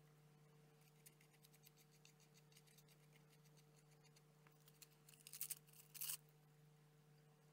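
Quiet, close handling of a paper-covered cardboard model and a glue brush: faint scratchy strokes and small ticks over a steady low hum, with two brief louder rustles about five and six seconds in.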